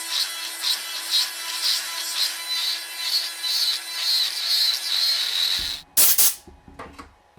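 Rhythmic back-and-forth strokes of a hand tool scraping on a workpiece, about two a second, stopping after about five seconds. A loud clatter follows about a second later.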